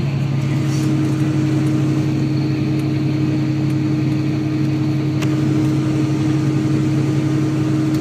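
Steady drone inside a moving coach bus: a constant low engine hum with road noise, unchanging in level.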